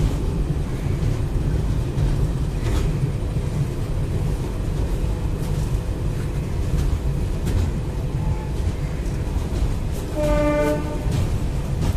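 A train heard from aboard, running with a steady low rumble and a few clicks of the wheels over rail joints. About ten seconds in, a train horn sounds one short blast of under a second.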